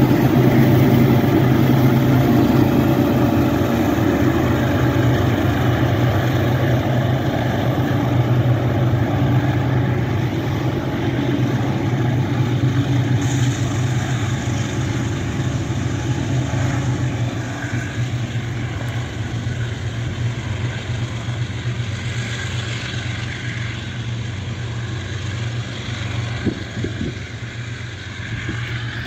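Two U20C diesel-electric locomotives pushing as helpers at the tail of a loaded grain train, their diesel engines running under load with a steady low drone. The sound fades gradually as they move away.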